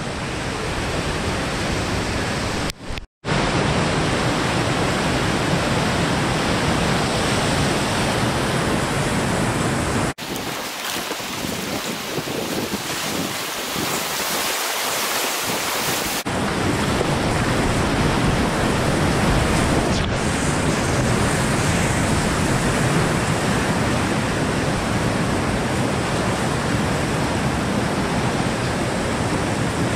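Whitewater rapids rushing loudly and steadily. The sound drops out for a moment about three seconds in, and for several seconds around the middle it turns thinner, with less low end.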